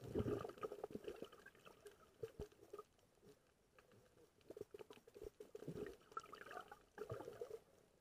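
Muffled underwater clicking, knocking and light bubbling, heard through an action camera's waterproof housing, in three short clusters: at the start, around five seconds in, and about seven seconds in.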